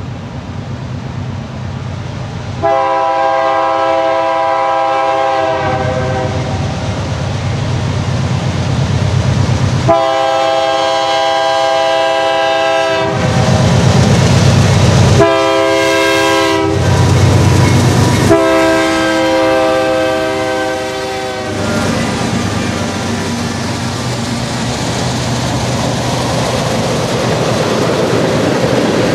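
A GE C44-9W diesel locomotive's horn sounds the grade-crossing signal: long, long, short, long. The locomotive's diesel engine runs loudly as it passes between the blasts. Then a string of empty tank cars rolls by with a steady clickety-clack of wheels on the rails.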